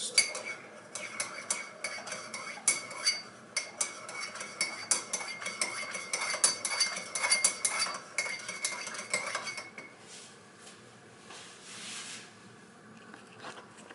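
A spoon stirring tea in a mug, clinking rapidly against its sides with a ringing tone. The stirring stops about ten seconds in.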